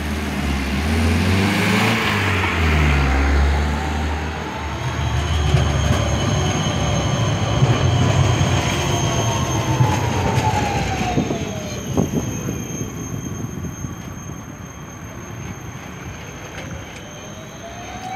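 Škoda 14T low-floor trams running past on street track: a low rumble of steel wheels on the rails, heaviest in the first half, with a whine that glides up and down in pitch and several sharp clunks about a third to two thirds of the way in.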